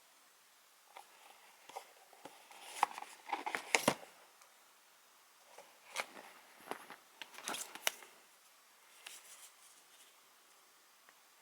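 Packaging being handled: short clusters of crinkling, crunching and clicking, loudest about four seconds in and again around seven to eight seconds.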